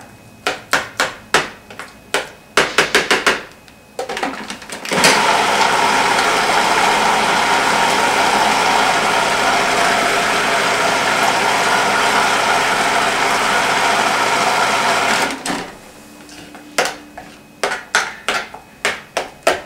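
A spoon clicking and scraping against the plastic bowl of a food processor. About five seconds in, the food processor's motor starts and runs steadily for about ten seconds, blending a thick avocado and cocoa mixture, then stops suddenly, and the spoon scraping starts again.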